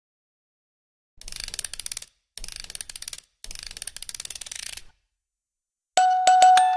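Intro sound effect of three bursts of rapid, ratchet-like clicking. About a second before the end, bright struck musical notes begin, several in quick succession.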